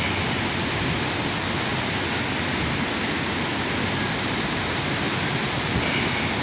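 Tropical storm wind and rain over heavy surf: a steady rushing noise with gusts rumbling on the microphone.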